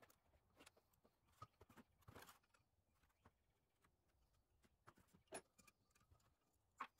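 Near silence with a few faint, scattered clicks and taps of hand tools and metal parts on a cast diesel cylinder head being stripped, the clearest about five seconds in and just before the end.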